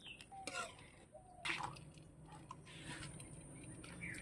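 Faint wet squishing and dripping as boiled taro stems are ladled out of their cooking water into a plastic colander to drain, with a couple of soft knocks.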